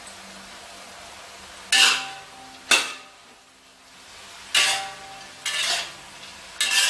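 Metal spatula scraping and knocking against a wok as minced beef and pork is stir-fried, in five separate strokes with a ringing metallic tone, the first about two seconds in. A faint sizzle of frying runs underneath.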